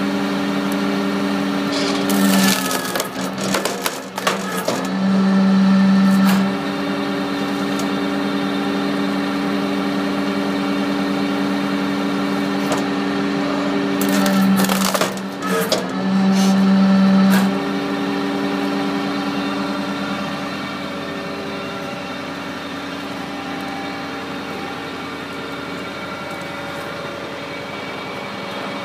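Tractor-powered hydraulic firewood processor running with a steady engine and pump hum. Twice, about 2 seconds in and again about 14 seconds in, the hum swells louder for a few seconds under load as the guillotine blade cuts through a hardwood log, with sharp cracks and splintering of the wood.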